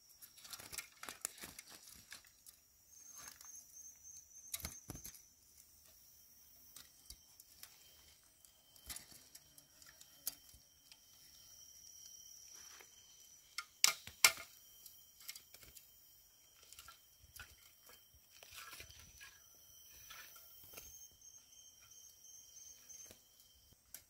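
Forest insects keep up a steady high-pitched drone, with a second steady tone for much of the time and short runs of rapid pulsed notes. Scattered clicks and knocks break through it, two sharp louder knocks about halfway through.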